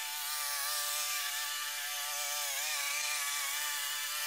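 Petrol engine of a Sabo lawn mower running steadily as the mower cuts grass, with a brief dip and wobble in pitch about two and a half seconds in.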